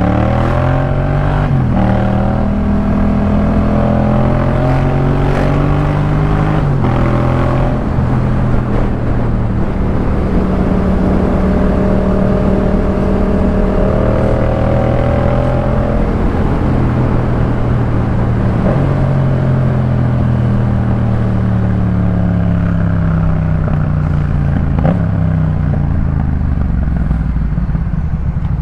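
Yamaha MT-07's 689 cc parallel-twin engine through a Jeskap K4 full exhaust, under way. The revs climb with steps down at gear changes in the first seconds, then hold steady, climb again, and fall away slowly as the bike slows.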